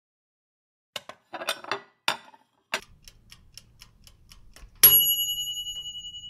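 Logo sound effect: a few scattered clicks and knocks, then fast, even clock-like ticking, ending about five seconds in with a loud, bright bell ding that rings on and slowly fades.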